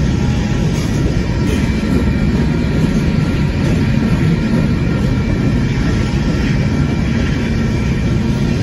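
Union Pacific freight train's gravel hopper cars rolling past, a steady loud rumble of steel wheels on rail.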